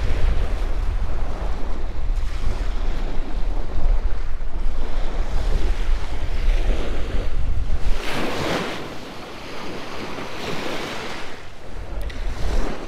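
Small waves breaking and washing up a sandy beach, with a louder wash about eight seconds in and another near eleven seconds. Wind buffets the microphone with a low rumble that eases after the first wave.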